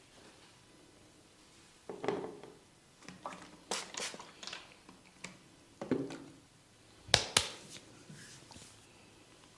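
Hair cracking during a head massage: a run of crackles and pops from the hair and scalp, starting about two seconds in. Two sharp snaps, the loudest of all, come close together about seven seconds in.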